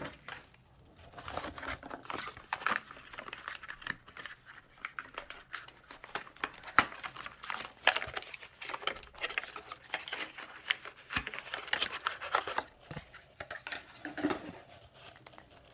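Packaging being handled while glitter jars are unpacked: irregular crinkling and rustling with many small clicks and taps.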